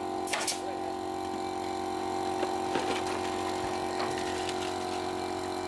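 A steady machine hum, with one sharp clatter about a third of a second in and a few faint taps later.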